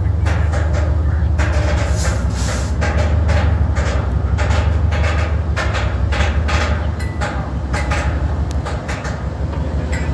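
Freight cars rolling directly overhead on the track: a loud, steady low rumble of wheels on rails, with many irregular clanks and rattles.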